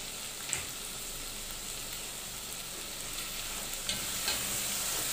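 Onions, tomatoes and ground spices sizzling steadily in hot oil in a metal pot, stirred with a wooden spatula, which grows a little louder about four seconds in. A few light clicks sound over the sizzle.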